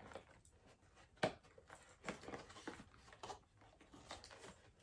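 Faint handling of a cardboard box and its paper inserts: soft rustling and tapping, with one sharp click about a second in.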